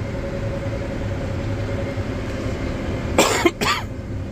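Massey Ferguson swather running steadily with a constant whine. A man coughs twice about three seconds in.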